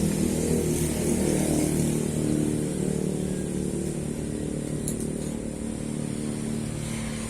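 An engine running steadily, its pitch wavering a little, growing slightly quieter toward the end.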